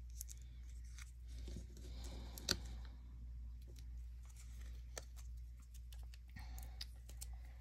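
Faint rustling and small taps of cardstock pieces being handled and moved about on a work surface, with a few sharp ticks, the clearest about two and a half seconds in, over a steady low hum.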